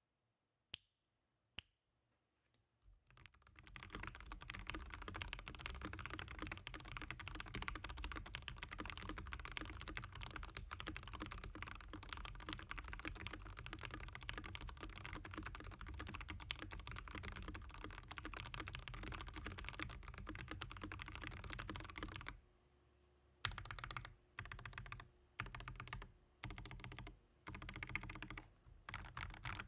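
Mechanical keyboard with lubed Gateron Pro Yellow linear switches, XDA keycaps, plate-mount stabilisers, a silicone-poured case, IXPE switch pads and tape mod, being typed on. Two single key clicks come first, then fast continuous typing from about three seconds in, then short bursts of typing with pauses near the end.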